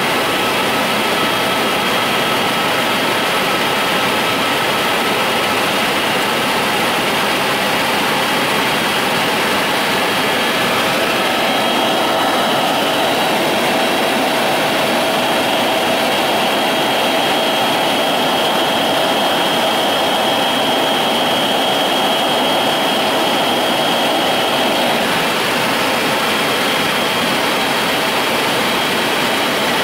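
Loud, steady engine drone with a rushing noise and a few held whining tones, two of them growing stronger from about eleven to twenty-five seconds in.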